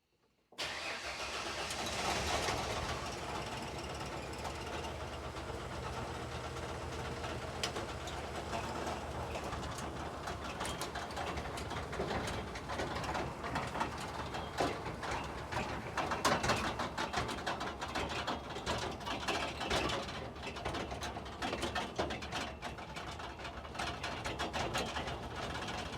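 1992 Ford F-150's inline-six engine running steadily, with irregular clicks and knocks over it from about ten seconds in.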